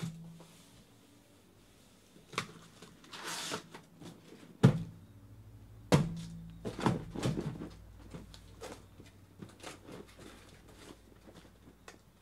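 Cardboard shipping case being handled: a blade scraping through the packing tape, then a loud thump about halfway through as the case is set down on the table. The cardboard flaps then knock and rustle as it is opened.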